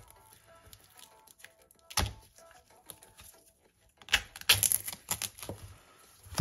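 A thin blade and a metal tool cutting and scraping through thick layers of tape on a parcel: a single sharp knock about two seconds in, then a quick run of clicks and scrapes from about four seconds.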